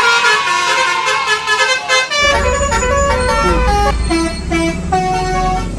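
Telolet basuri multi-tone bus horn playing a tune of held notes, with a low rumble joining about two seconds in.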